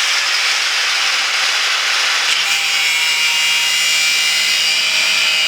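Angle grinder cutting, a loud, steady hiss with a faint whine in it; the tone shifts slightly a little over two seconds in.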